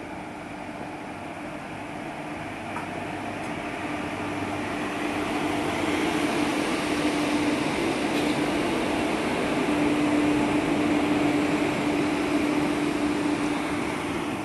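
An Indian Railways WAP-4 electric locomotive rolling past close by: a steady hum over a broad rumble, growing louder as it comes alongside and easing off near the end.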